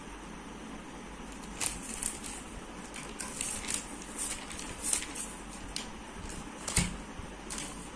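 A thin paper sheet rustling and crinkling as it is handled, in short irregular bursts that start about a second and a half in, with a sharper knock near the end.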